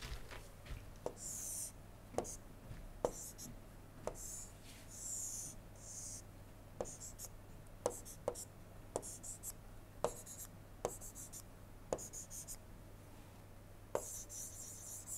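Stylus drawing on a tablet screen: faint, scratchy pen strokes with a sharp tap of the pen tip every second or so, over a steady low hum.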